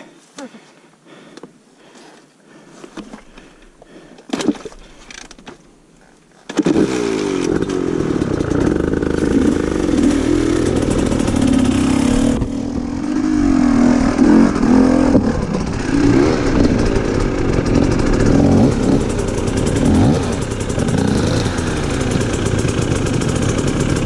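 A few soft clicks and knocks at first. About six seconds in, an enduro dirt bike's engine starts abruptly and keeps running, its pitch rising and falling with the throttle as the bike climbs.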